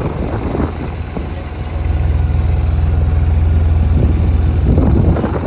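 Sailboat's motor running in forward gear, a steady low drone that grows louder about two seconds in as the throttle is opened to hold the boat against the wind.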